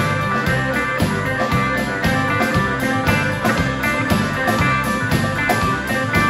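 Live country-rock band playing an instrumental passage: electric guitar picking a lead with pedal steel guitar over a steady drum beat and bass.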